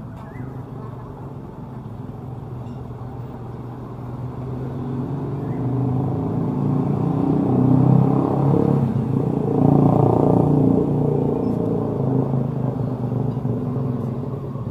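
Road traffic: a motor vehicle's engine draws near, passes close in the middle and fades away.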